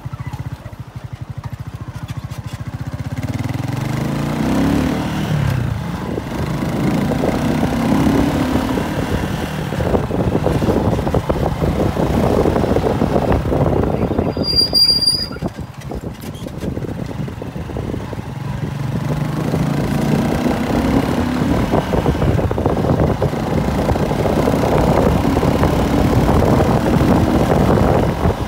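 Motorcycle engine running while riding, its pitch rising and falling as it speeds up and slows, over wind and road noise. A brief high squeal comes about halfway through.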